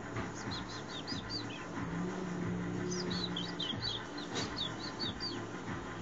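Lovebirds chirping: quick series of short, high chirps in two bouts, the second starting about three seconds in.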